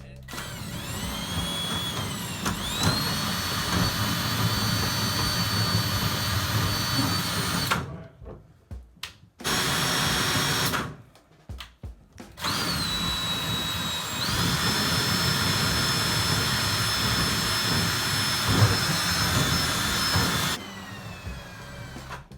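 Electric drain-cleaning cable machine running: the motor spins up with a rising whine and holds a steady pitch. It stops about eight seconds in, runs briefly around ten seconds, then runs again from about twelve to twenty seconds.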